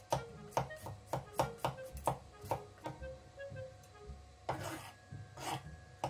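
A knife shaving a burdock root into thin slivers over a wooden cutting board: short scraping strokes about twice a second, with two longer rasping strokes near the end.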